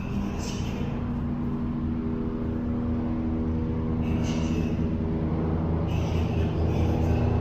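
A low droning hum of several steady, held tones, slowly growing louder, with a few soft brief hisses over it.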